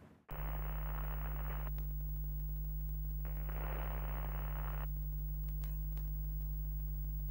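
Retro-television end-card sound effect: a steady low electrical hum, with two bursts of static hiss of about a second and a half each, one just after the start and one about three seconds in, and a short crackle near the end.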